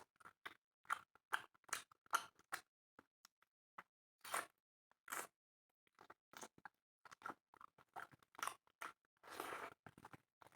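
Close-up eating sounds: a person chewing and crunching on spicy chicken with rice, a run of short crunchy clicks, close together at first and sparser in the middle, with one longer rustle about nine seconds in.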